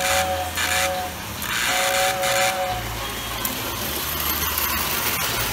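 Lionel toy train's whistle blowing three blasts, two short and one long, a hoarse two-note chord with an airy hiss over it. After the blasts the low rumble and hum of the train running on the track carry on.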